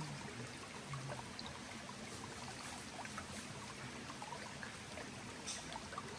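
Shallow forest stream trickling and running over rocks, a steady wash of water.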